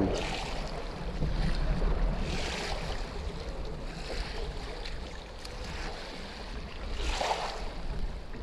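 Wind buffeting the microphone over choppy, wind-driven lake water, with brief splashes as a wader works at a net basket in the shallows about two and a half seconds in and again near the end.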